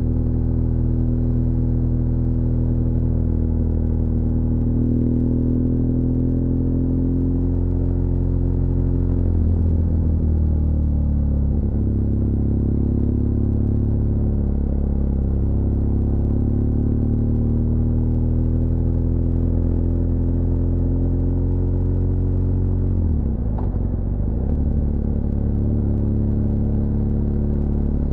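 BMW R1200GS LC Adventure's boxer-twin engine running as the motorcycle rides downhill, its pitch drifting slowly, with two abrupt changes in engine speed, about nine seconds in and near the end.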